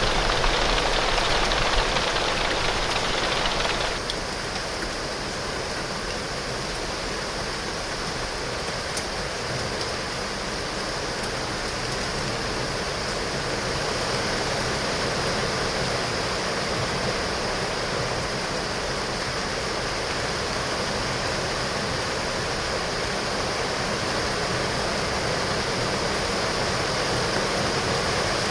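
Heavy rain falling on window glass, a steady dense hiss; it drops to a somewhat softer level about four seconds in and stays even after that.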